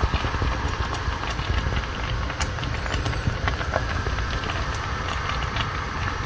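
Thick melkkos simmering in a pot, bubbles popping in quick irregular clicks over a steady low rumble. It cuts off suddenly at the end.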